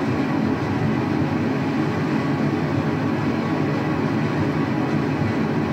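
Waterfall roaring: a steady, unbroken rushing noise that neither rises nor falls.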